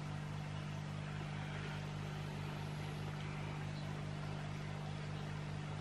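Steady low electrical hum with a faint, fast, even flutter in it; nothing else stands out.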